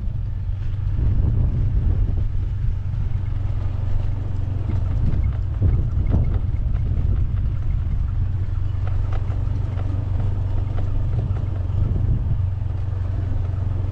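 A small engine running steadily at low speed, a constant low hum, with wind rumbling on the microphone and a few light knocks from the bumpy track.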